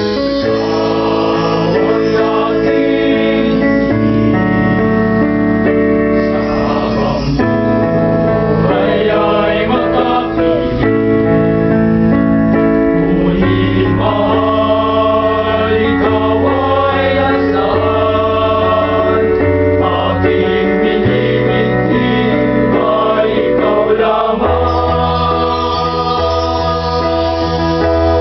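Male a cappella vocal group singing a slow ballad in close harmony: sustained chords under a lead voice with vibrato.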